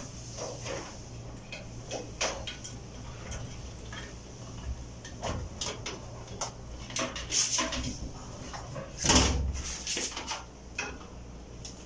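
Irregular small clicks, rustles and scrapes as a replacement dryer belt is threaded under the drum's support bracket and worked around the drum by hand, with a louder knock against the dryer's metal frame about nine seconds in.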